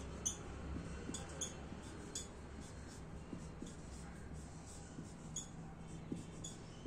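Whiteboard marker squeaking and tapping on the board in short, irregular strokes as a grid of small boxes is drawn, over a faint low room hum.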